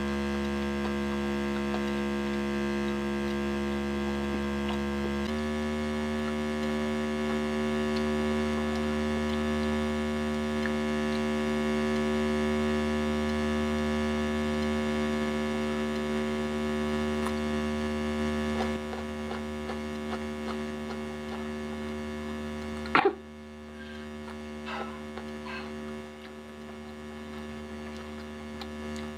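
Steady electrical mains hum with many tones layered together, the loudest thing throughout. Its pitch pattern shifts about five seconds in and it weakens near the middle. A sharp click comes about 23 seconds in, after which the hum is quieter, with a few faint small clicks.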